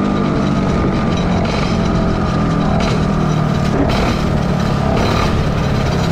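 Kart engine running steadily at low speed as the kart rolls along, heard close up from onboard the kart.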